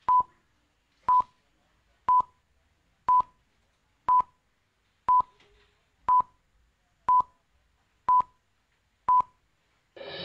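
Countdown beeps: ten short, identical electronic beeps, one each second, ticking off a countdown leader from nine to zero. Theme music starts in right at the end.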